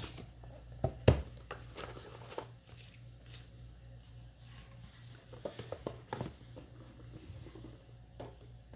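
Oracle cards and a card box being handled on a tabletop: a sharp tap about a second in, then scattered light clicks and taps, over a faint low hum.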